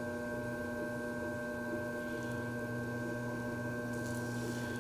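Electric potter's wheel motor running at a steady speed: a constant hum of several fixed tones.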